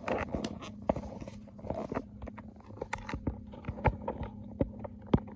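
Irregular clicks and knocks of a phone being handled and set on a tripod stand, over a low steady hum.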